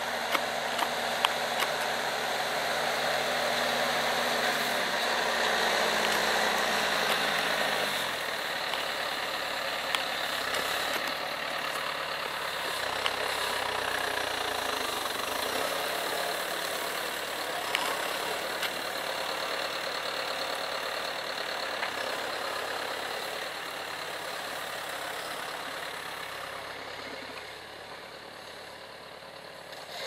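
John Deere 6320 tractor's four-cylinder diesel engine running steadily under load while pulling a four-furrow plough. The engine note drops in steps a few seconds in, a few sharp clicks come through, and the sound slowly fades near the end.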